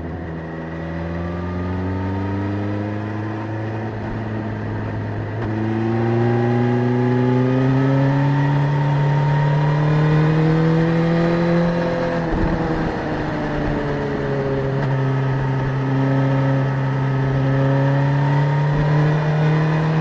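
Suzuki GSX-S1000's inline-four engine pulling on the road, its pitch climbing steadily, dropping at a gear change about five seconds in and climbing again. About twelve seconds in it falls away as the throttle closes, then holds fairly steady.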